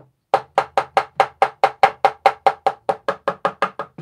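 Rapid, even run of about seventeen knocks, about five a second, as a cherry cabinet face frame is struck to tap its dry-fitted loose-tenon joints apart. Each knock has a hollow, woody ring.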